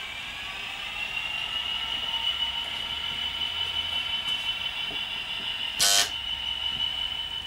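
The DCC sound decoder in a Bachmann OO-scale Class 66 model locomotive plays through its small onboard speaker. The recorded diesel engine and turbo whine rise in pitch as the model pulls away, then hold steady. A short horn blast, the loudest sound, comes about six seconds in.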